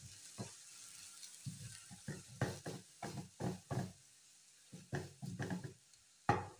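Chicken pieces frying in a frying pan, with a faint sizzle and a spatula stirring and scraping them against the pan. There is a run of quick scraping strokes from about a second and a half in, and a few more near the end.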